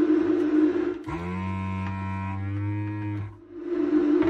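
Vacuum pump of a desoldering gun running with a steady hum. About a second in, its tone changes to a deeper, steadier note for about two seconds while the nozzle works on the header pins. It then dips briefly and settles back to its hum.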